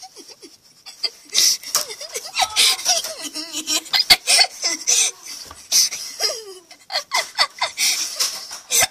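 Children laughing hard in repeated bursts, with a sharp click about four seconds in and another near the end.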